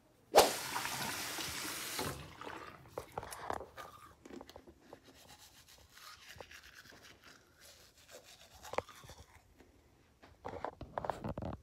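Teeth being brushed with a manual toothbrush: uneven scrubbing of the bristles. About half a second in, a loud hissing rush lasts about a second and a half and is the loudest thing heard.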